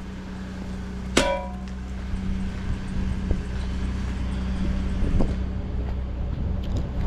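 A single metal clang with a brief ring about a second in, over the steady low hum of a vehicle engine running.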